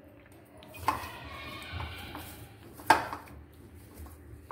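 Hands kneading shankarpali dough in a stainless-steel bowl, the bowl knocking twice: about a second in and more loudly near three seconds.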